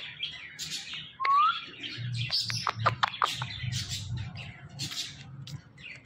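Indian ringneck parakeet chirping and chattering: a short rising whistle about a second in, then a quick run of short, sharp chirps and squeaks.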